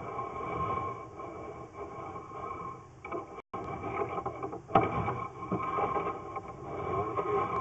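Steady machine hum carrying a couple of steady tones. The sound drops out completely for a moment about three and a half seconds in, and a sharp click comes near five seconds.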